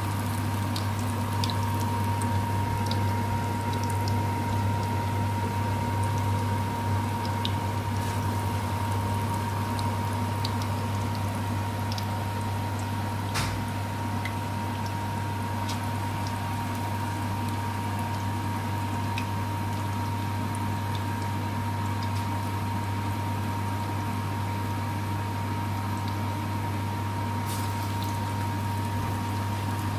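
Red-lentil fritters (masoor dal bora) deep-frying in a pan of hot oil, a steady sizzle dotted with small scattered pops and one sharper click near the middle. Beneath it runs a constant low hum with a thin steady whine.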